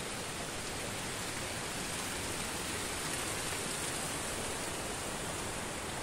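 Steady rush of flowing water: an even hiss that neither rises nor falls.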